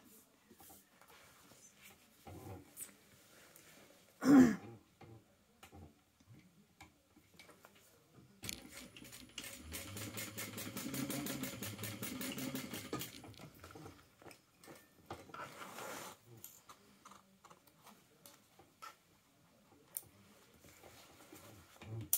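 Sewing machine stitching in a fast, even run for about four and a half seconds, top-stitching across a wallet panel, with a shorter burst a little later. About four seconds in there is a single sharp thump, the loudest sound.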